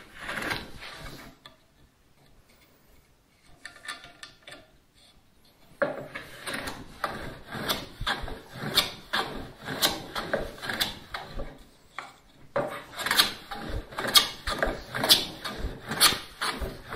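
Metal bench plane pushed along a pine 2x4 in short, rapid strokes, each a scraping swish of the iron cutting a shaving. The planing is faint for the first few seconds and runs steadily from about six seconds in. It is flattening a twisted board, taking shavings only from the high spots.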